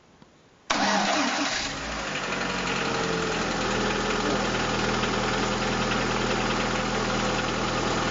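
Lada Priora (VAZ-2170) four-cylinder petrol engine cold-started: it catches suddenly under a second in, runs up briefly, then settles to a steady, even idle. No clear metallic knock is heard: the tapping once taken for the hydraulic lifters came from two failed ignition coils, now replaced.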